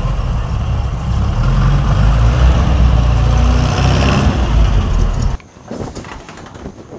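Engine of a Volkswagen Beetle running after being started, a loud, steady low rumble. It cuts off abruptly about five seconds in, leaving only faint background sound.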